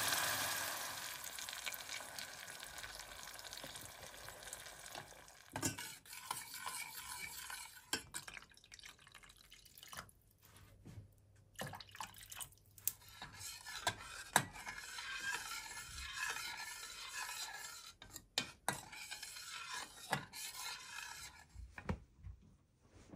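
Tomato sauce sizzling in a stainless steel saucepan, fading away over the first few seconds, then a metal spoon stirring the sauce with scattered clinks and knocks against the pan.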